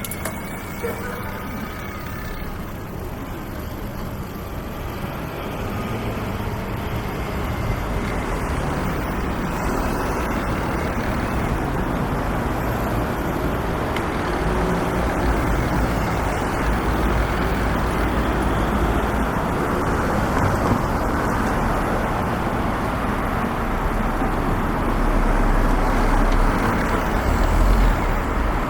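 Road traffic noise: a steady wash of passing cars, with a deep rumble of heavier vehicles that grows louder near the end.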